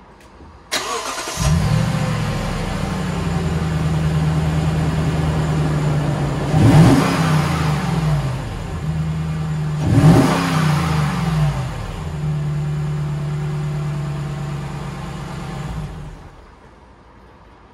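Lexus GX460's 4.6-litre V8 cranked and started, idling through the stock Y-pipe and a Magnaflow Overlander cat-back exhaust. It is revved briefly twice, then switched off near the end.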